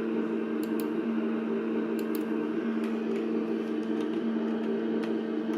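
Steady mechanical hum of a lift in motion, heard inside the car as it travels between floors, with a few faint ticks.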